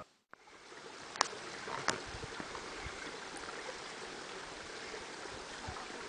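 Small forest stream running: a steady rush of flowing water, with two sharp clicks about one and two seconds in.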